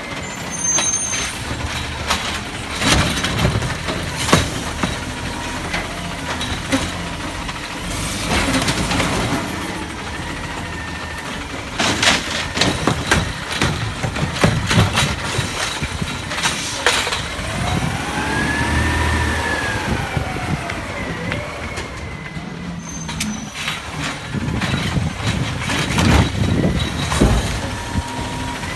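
Garbage truck at work: its engine running, with repeated clanks and bangs and a whine that rises and falls once about two-thirds of the way through.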